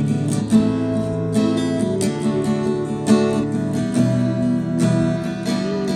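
Background music: strummed acoustic guitar with plucked notes at a steady pace.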